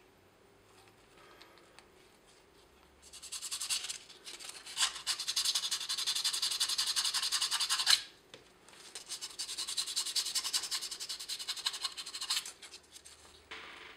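Fast back-and-forth rubbing on a small carburetor held in the hands, a dense scratchy rasp. It starts about three seconds in, breaks off briefly around eight seconds, then runs again for about four seconds, with a short last burst near the end.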